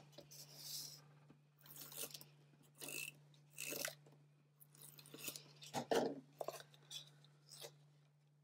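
Small paper cards being handled, slid and pressed down on a wooden tabletop, with a tape runner laying adhesive on a card: a series of short, dry paper rustles and scrapes. A faint steady low hum runs underneath.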